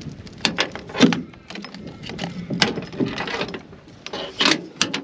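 Irregular clicks, knocks and rattles of plastic parts being handled as the old search coil is taken off a Minelab Equinox metal detector.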